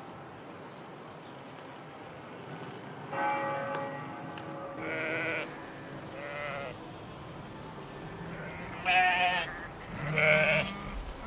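Sheep bleating: five wavering bleats a second or two apart, starting about three seconds in, the last two loudest.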